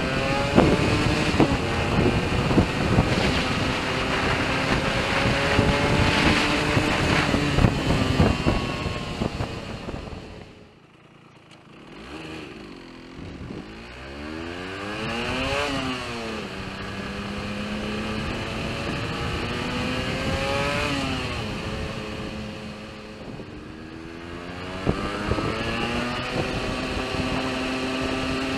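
Yamaha RD125LC two-stroke single-cylinder engine running with a ragged, crackling note. It drops away about ten seconds in, then is revved up and down a couple of times and settles again. The unevenness is the splutter/misfire the bike is being recorded for.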